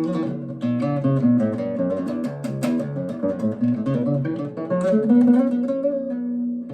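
Acoustic guitar melody of single notes plucked with the thumb, a quick run of separate notes with a few held longer near the end. It is a demonstration of thumb tone, the sharper attack of the thumbnail against the softer, duller sound of the thumb's flesh.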